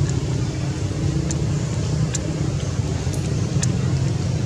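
Steady low engine rumble, like nearby motor traffic, with a few faint high ticks scattered through it.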